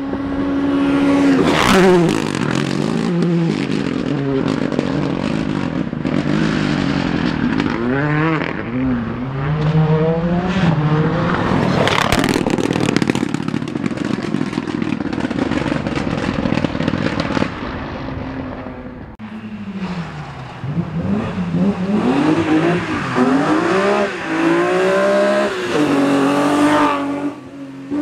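Rally cars' engines revving hard at full throttle, the pitch climbing through each gear and dropping sharply at the shifts and on the brakes into a bend, with a couple of sharp cracks.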